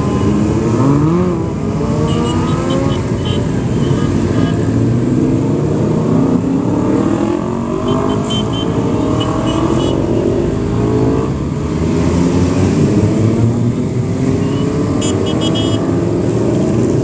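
A stream of motorcycles, sportbikes and cruisers, riding past one after another, their engines revving up in rising sweeps as each one accelerates by.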